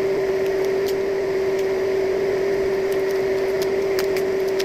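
A steady, unchanging hum at one pitch with a few faint light clicks over it.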